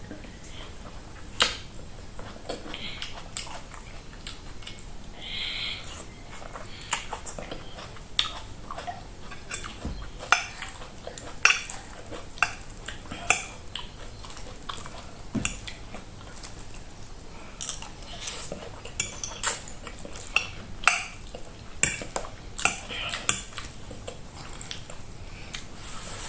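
Metal cutlery clinking and scraping against a plate as food is picked up, in many short, sharp, irregular clicks.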